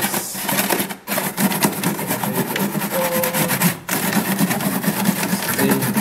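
A toothbrush scrubbing the refrigerator's plastic interior liner with baking soda solution in rapid back-and-forth strokes to lift dried stains. It pauses briefly about a second in and again near four seconds.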